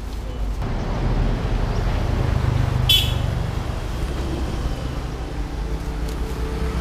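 Motor vehicle engine running close by, a steady low rumble that swells about half a second in, with a brief high-pitched sound about three seconds in.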